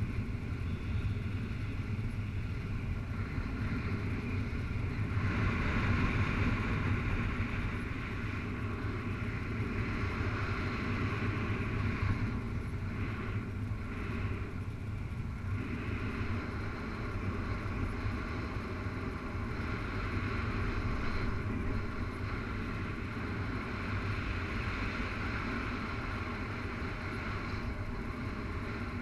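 Wind of a paraglider's flight rushing over the harness-mounted camera's microphone: a steady low rumble with a higher hiss that swells for a while about five seconds in.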